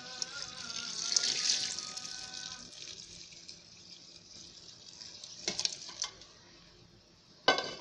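Cold water poured from a pot into a plastic tub of dissolved soap, splashing and churning into the liquid. The splashing is loud for about the first three seconds, then dies down to a faint trickle. A few short knocks come near the end.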